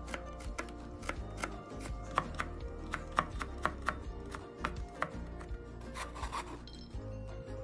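Cleaver chopping carrot slices into thin strips on a plastic cutting board: quick taps of the blade on the board, several a second. A short scrape of the blade over the board comes about six seconds in.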